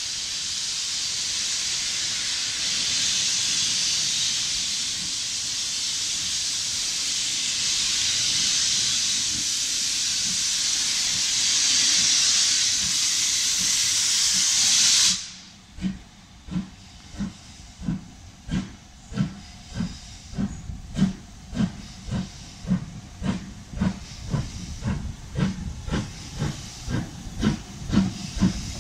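Black 5 (LMS Stanier Class 5 4-6-0) steam locomotive: a loud steady hiss of escaping steam that cuts off suddenly about halfway through. Sharp exhaust beats follow at about two a second, growing louder as the engine works toward the listener.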